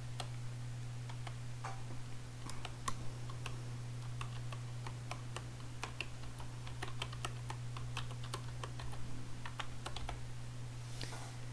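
Computer keyboard keys tapped one at a time in irregular clicks as a web address is typed, sparse at first and quicker in the second half, over a steady low hum.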